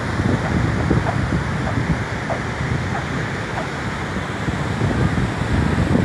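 Bare feet crunching in fine, dry beach sand at a walking pace, a short squeak with each step, over the steady rush of surf and wind buffeting the microphone.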